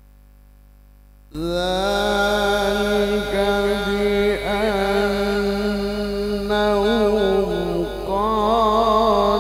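A man's voice in melodic Quran recitation (tilawah), heard through a microphone. After a short pause it enters about a second in and holds long, drawn-out notes, decorated here and there with quick warbling turns.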